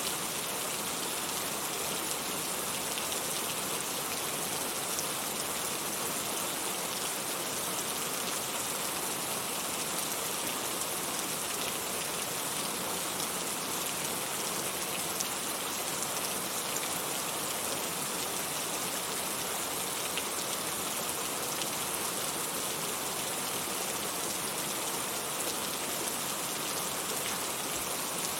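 Heavy rain falling steadily: an even hiss of rain with a fine patter of drops, unchanging throughout, with no thunder.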